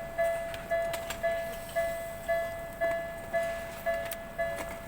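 Japanese railway level-crossing warning bell ringing its steady 'kan-kan' alarm, about two strikes a second, each a ringing tone that fades before the next. The crossing is active with its barriers down.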